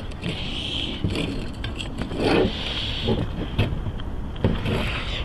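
A folding road-bike tire being handled and positioned on a carbon rim: scrapes, rustles and light clicks of the rubber and bead against the wheel, louder a little past halfway. A steady background hiss runs underneath.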